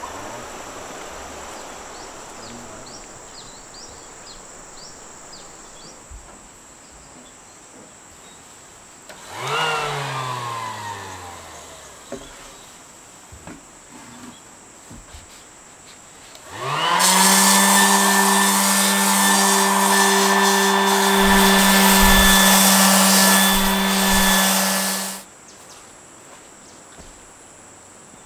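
A small high-speed motor spins up quickly, runs loud and steady at one pitch for about eight seconds, then cuts off abruptly. About halfway through there is a brief sound falling in pitch over a couple of seconds, with insects in the background.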